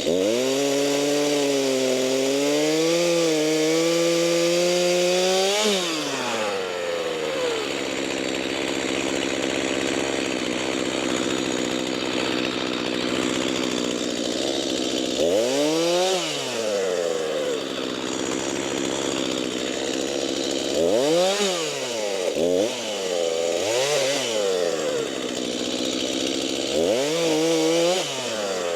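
Stihl chainsaw cutting cherry logs at full throttle for about six seconds, its pitch wavering as the chain bites, then dropping to idle. In the second half it is revved up briefly several times.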